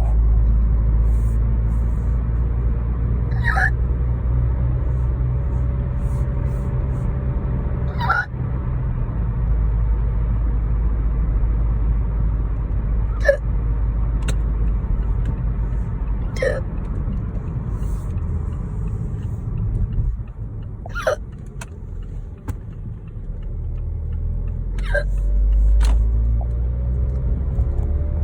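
A person hiccuping, about six sharp hiccups several seconds apart over a steady low rumble. The hiccups are somewhat painful, and the uploader puts them down to spicy wings and a glass of wine.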